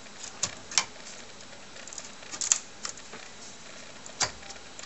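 A handful of short clicks and taps from hands handling a circuit board, seating its connector onto a computer motherboard's bus connector. The sharpest click comes about halfway through, another just before the end.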